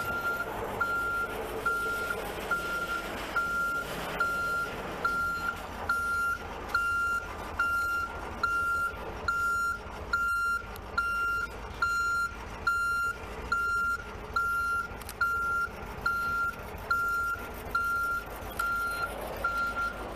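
A truck's reverse alarm beeping evenly, a little more than once a second, one steady tone per beep, loudest around the middle. A vehicle engine runs underneath.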